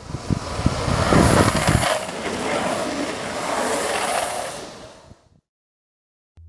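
Wheels rolling fast on asphalt, a steady rushing hiss with low buffeting thumps in the first two seconds, fading out about five seconds in.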